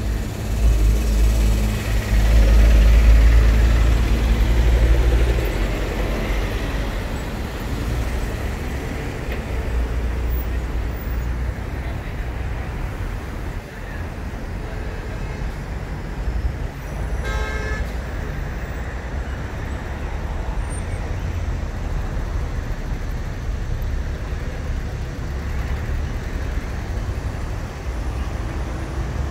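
Steady road traffic of cars and buses passing on a busy road, with a loud low rumble for the first five seconds or so and one short vehicle horn toot about seventeen seconds in.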